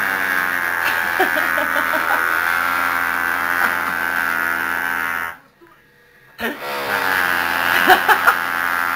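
A man imitating an electric drill with his voice: a steady, loud buzzing whine, held for about five seconds, breaking off for a second, then starting again.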